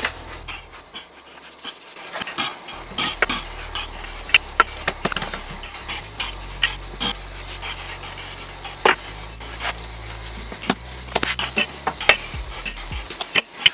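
Wooden rolling pin rolling out floured dumpling dough on a stone countertop: a low rumble as it rolls, with many scattered knocks and clicks of the pin against the counter, starting a few seconds in.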